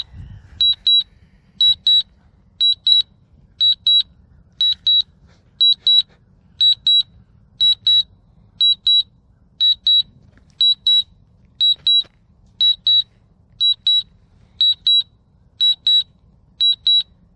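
DJI Mavic 2 Zoom's remote controller sounding its return-to-home warning after the drone lost its connection: short high beeps in pairs, about one pair a second.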